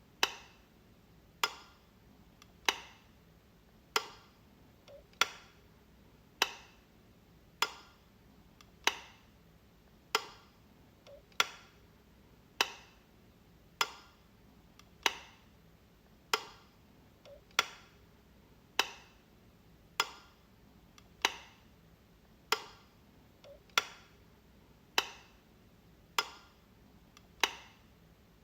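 Light switch clicking, one sharp click about every second and a quarter, each with a short ring-off.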